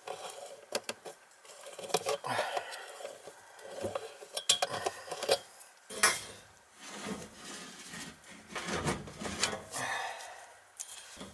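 Tubing cutter being turned around a copper water pipe: irregular metallic clicks and scraping as the cutting wheel scores the copper.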